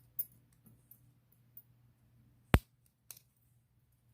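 Lock pick and tension wrench working the pin stacks of a vintage Ilco padlock in hand: faint scattered clicks, then one sharp, loud click about two and a half seconds in and a softer one just after.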